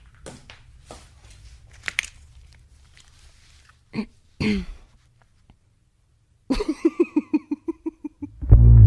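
Faint scattered clicks and taps, then two short voice-like sounds about four seconds in, and a quick run of pitched pulses before loud background music starts near the end.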